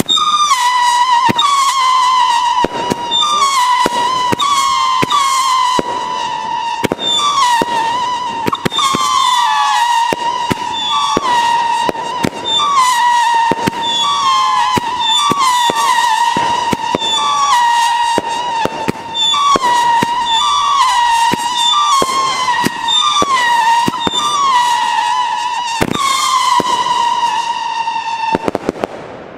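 Tropic Titanium Salute Scream firework battery firing: low-pitched howling whistles run together into one continuous wavering howl, with loud salute bangs cracking one or two a second. The howl holds steady for a moment, then cuts off near the end.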